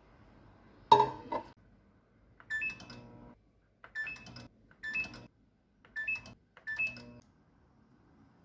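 A single knock, then five or six short beeps, each with a click, spaced about a second apart, like buttons being pressed on a kitchen appliance's keypad.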